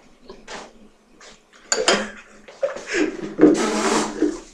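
A person gagging and spitting out a mouthful of salt into a bucket, in loud rough outbursts starting about two seconds in, with some clatter of dishes or utensils.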